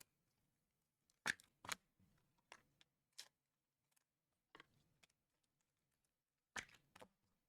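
Trading cards being handled and sorted: a string of short, quiet card slides and snaps, about seven spread over a few seconds.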